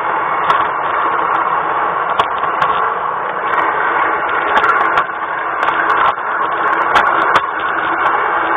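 Steady whirring rattle of an LGB garden-railway model train running along its track, heard from on board, with scattered sharp clicks.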